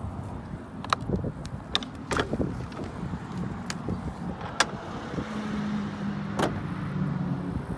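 Aluminium horse trailer's door latch and hinged metal bar being worked by hand: a series of about six sharp metal clicks and clanks spread over several seconds.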